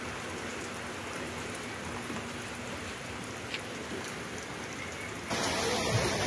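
Steady rain falling, an even hiss with a few faint drip clicks. About five seconds in it cuts abruptly to louder rushing water.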